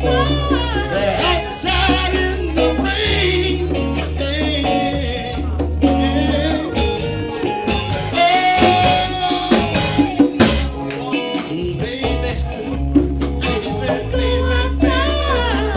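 A live band playing a song, with electric bass guitar and drum kit, and singing in places.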